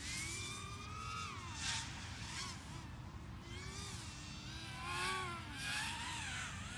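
FPV racing quadcopter's motors whining, the pitch sweeping sharply up and down with the throttle as it flies the course. It swells louder as it passes close, once about two seconds in and twice more around five to six seconds.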